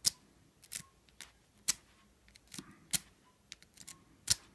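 Lock pick being zipped through the wafers of an old Yale wafer padlock: a series of about eight sharp, irregular metallic clicks.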